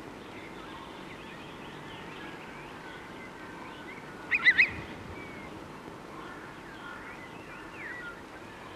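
Chickadee calling: a quick burst of three loud notes about four seconds in, over faint scattered chirps.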